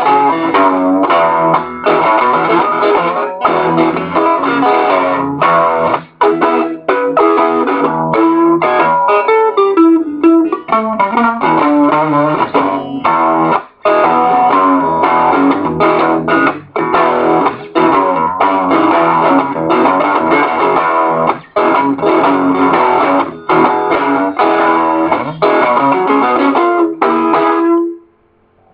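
Electric guitar playing a fast blues boogie with a distorted, effects-laden tone and short choppy breaks; it stops near the end.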